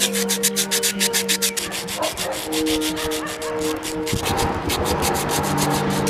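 A bare hand rubbing over a cement surface to smooth it: a fast, regular run of gritty scraping strokes, several a second, that blurs into one continuous rub about four seconds in.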